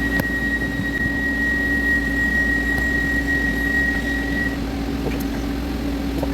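CNC lathe cutting steel with a steady high-pitched ring over the machine's hum, typical of tool chatter from the workpiece vibrating. The ring stops about four and a half seconds in while the machine keeps running.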